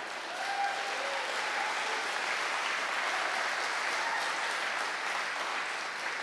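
Audience applauding, steady throughout.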